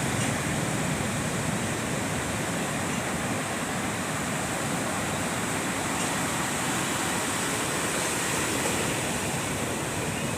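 Steady rushing of sea surf: an even wash of noise with no single wave standing out.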